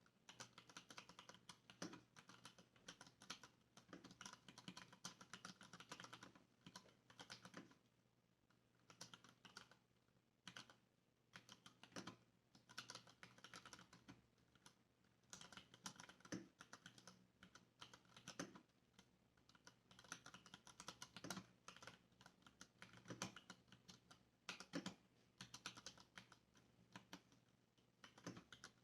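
Typing on a Varmilo mechanical keyboard with stock Cherry MX Brown switches: quick keystrokes in runs broken by short pauses, thinning out for a few seconds about a third of the way in.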